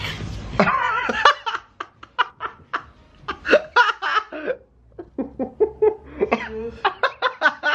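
A young man laughing hard in two long runs of quick bursts, with a short lull in the middle.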